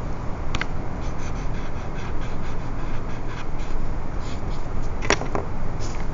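Paper blending stump rubbing over graphite shading on drawing paper: faint, short scratchy strokes over a steady low background rumble, with a sharp click about five seconds in.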